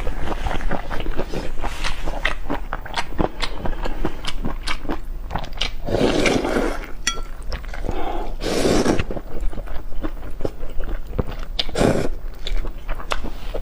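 Close-miked eating: wet chewing and biting with many sharp clicks and crunches, and three longer noisy swells around the middle and near the end.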